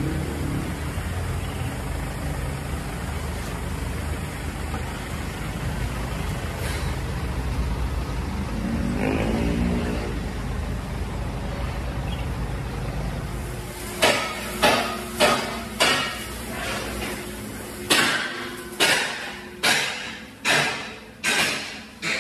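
A steady low engine-like rumble, with a brief rising pitched sound about nine seconds in. From about two-thirds of the way through come a run of sharp metallic strikes, roughly one or two a second, each ringing briefly, like hammer blows on steel.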